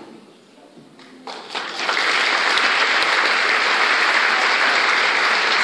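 Large theatre audience applauding: the clapping starts about a second in, swells quickly and then holds full and steady.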